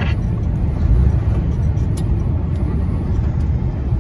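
Steady low rumble of a truck's engine and road noise inside the cab while driving, with a brief click about two seconds in.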